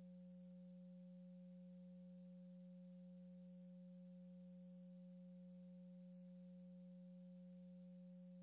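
Near silence with a faint, steady low hum that does not change.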